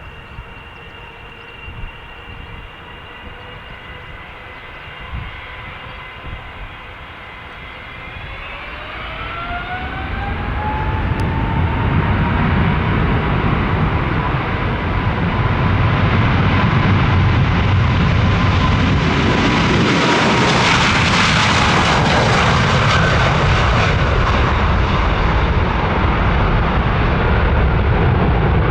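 Boeing 777 twin jet engines whining steadily at low power, then spooling up with a rising whine about eight seconds in. The sound builds to a loud, steady takeoff-thrust roar that peaks as the airliner passes by.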